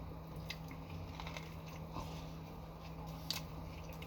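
A person chewing a mouthful of Subway sandwich: soft wet mouth sounds with scattered small clicks, over a steady low hum.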